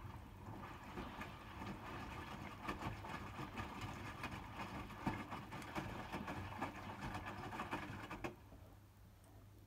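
Hotpoint WMFUG 942 washing machine's drum turning on its motor, tumbling the wet laundry with a busy clatter, then stopping abruptly about eight seconds in.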